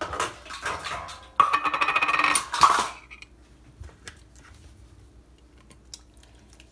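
Small tin can of green chilies being shaken and scraped out over a skillet, with a loud metallic scraping rattle for about a second and a half, starting about a second and a half in and stopping abruptly. After it, a single faint click near the end.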